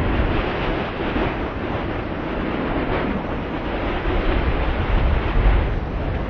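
Strong wind blowing, a steady rushing noise with a low rumble of wind buffeting the microphone that swells in a gust about five seconds in.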